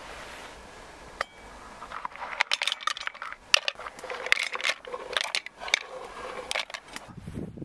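A busy run of light clinks and clatter from small hard objects being handled, beginning about two seconds in, with one sharp clink louder than the rest.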